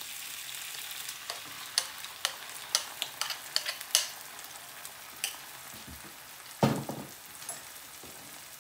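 Onions frying in oil in a nonstick pan, a steady sizzle, as chopped tomato is spooned in from a bowl. A quick run of sharp clicks from the spoon against the bowl comes in the first few seconds, then one louder knock about seven seconds in. The sizzle quietens a little after about four seconds.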